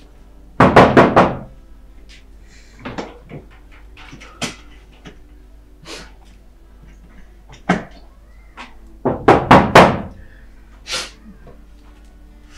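Knocking on a door: a quick run of four or five loud knocks about half a second in, a few softer single knocks, then another quick run of knocks about nine seconds in and a single knock near eleven seconds.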